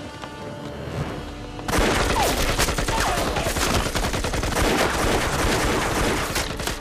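Sustained automatic gunfire: many rapid shots overlapping in a long volley, starting sharply about two seconds in. Before it, dramatic soundtrack music plays.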